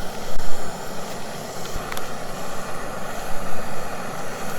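Isobutane camp stove burner running with a steady hiss, heating a pot of water to the boil.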